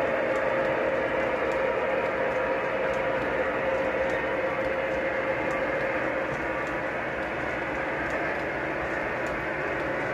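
Lionel O-gauge model train cars rolling steadily along three-rail track, a continuous running rumble with a steady hum and faint light clicks. The hum eases a little in the second half as the cars go by.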